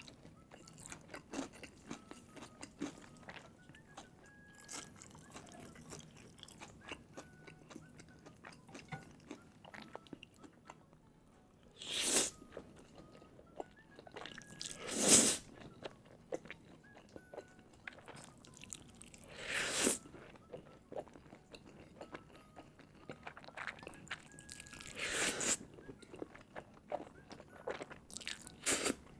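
Close-miked eating: steady chewing with many small wet clicks, and four louder crunching bites spread through.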